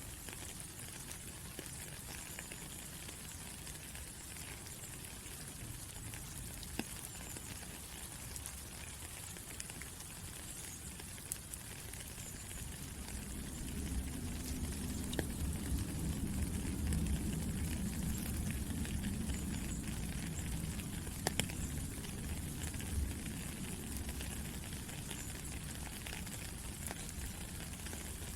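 Steady rain falling, an even hiss with scattered sharp ticks of individual drops. A low rumble swells up about halfway through and eases off again near the end.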